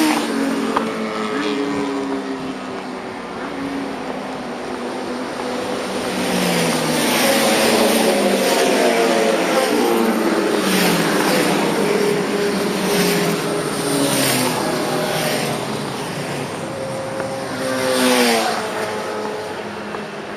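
Motorcycle engine accelerating hard through the gears; its pitch climbs and drops back at each upshift, under loud wind rush at speed. Near the end the engine pitch falls away.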